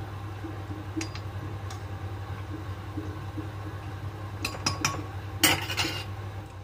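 A perforated metal skimmer clinking against a metal kadhai as it turns cookies frying in oil: a few light clinks, then a quick run of clinks and a louder scraping clatter near the end, over a steady low hum.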